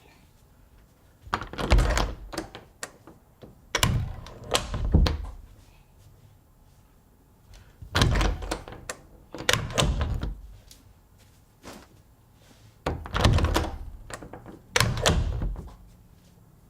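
A house door being opened and shut again, three times over, each time with latch clicks and a solid thud.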